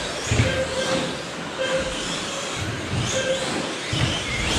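1/10 scale electric short course RC trucks racing on astroturf: motors whining, rising and falling in pitch as the trucks accelerate, over a steady rumble of tyres, with a few low thumps.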